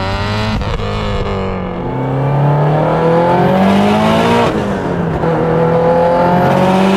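Subaru WRX STI with a built turbocharged flat-four and a Precision 5862 turbo, accelerating hard through the gears. The revs climb steadily and fall back at each upshift, about half a second in and again about four and a half seconds in.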